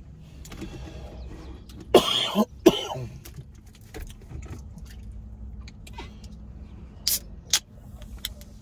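A cough about two seconds in, then an aluminium soda can cracked open near the end with two short, sharp, hissy snaps, over a low steady hum inside a vehicle.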